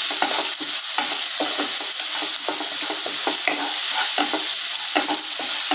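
Chopped onion, green chillies, curry leaves and roasted peanuts sizzling in hot oil in a nonstick kadai. A wooden spatula stirs them, scraping the pan in quick repeated strokes.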